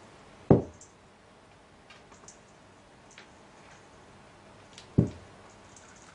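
Two dull thumps about four and a half seconds apart, each dying away quickly, with a few faint light ticks between them over quiet room tone.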